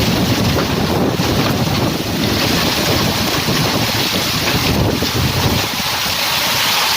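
Storm-force wind gusting, buffeting the microphone with a loud, rumbling roar. About six seconds in the low buffeting eases and a steadier hiss takes over.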